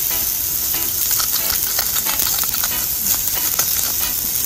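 Food sizzling in a hot pan: a steady high hiss with faint ticks over it.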